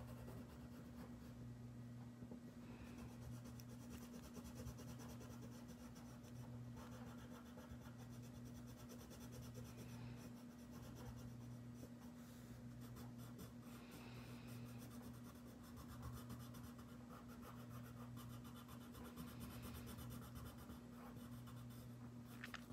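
Faint scratching of a colored pencil shading on paper with short back-and-forth strokes, over a steady low hum.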